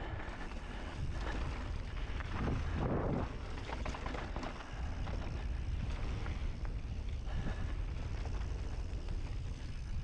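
Wind buffeting the microphone of a mountain bike in motion on a dirt trail, with tyre noise and the bike rattling over rough ground. There is a louder surge of noise about three seconds in.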